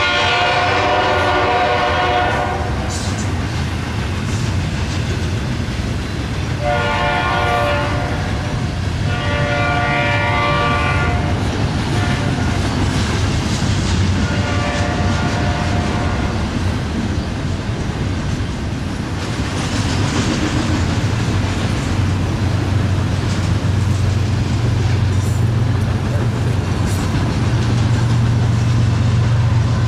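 Double-stack container train rolling past with a steady rumble and clatter of wheels on rail, while a diesel locomotive's air horn sounds several blasts in the first half, the last one fainter. A deeper engine hum grows louder near the end.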